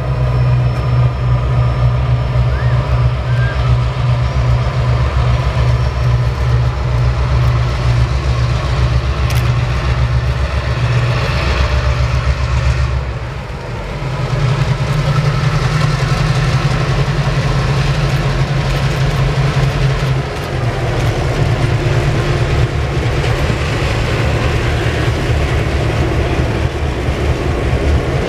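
A passenger train hauled by EMD F-unit diesel locomotives passing close by, the engines running with a heavy, steady rumble, then the passenger cars rolling past on the rails.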